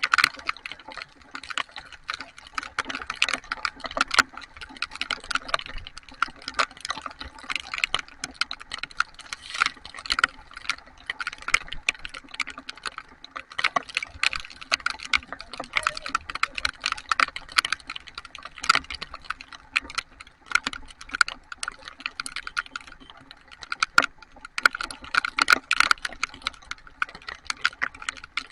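Heavy rain, with dense, irregular ticking of raindrops striking a hard surface over a steady patter of rain.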